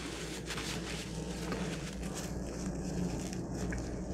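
A person chewing food close to the microphone, a steady run of small clicking mouth sounds.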